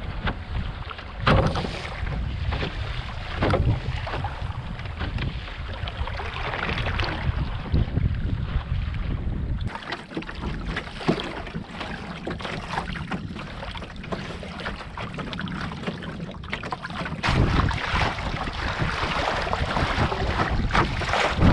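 Water sloshing and splashing along the hull of a cedar strip canoe moving under sail, with wind buffeting the microphone and a few sharper splashes. The wind rumble eases for several seconds in the middle.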